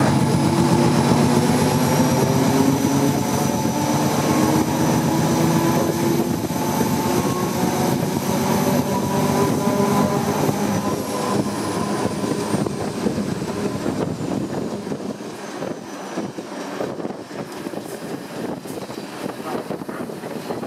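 ČD class 742 'Kocour' diesel locomotive's turbocharged six-cylinder engine working hard under load, with a high whine climbing slowly above it. About ten seconds in the throttle eases: the whine falls away, the engine note drops and the rolling noise of the locomotive on the rails is left.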